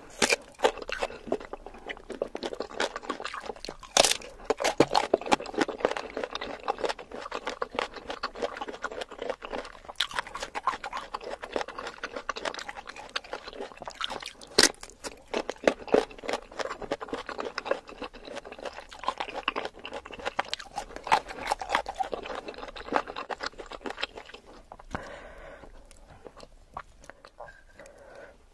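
Close-up chewing and crunching of crisp food, many irregular crunches in quick succession, with two sharper bites about 4 and 15 seconds in. It grows quieter near the end.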